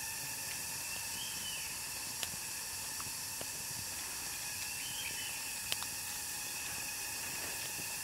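Steady hiss of small bird eggs frying on a stone heated by a wood fire, with a few sharp clicks over it.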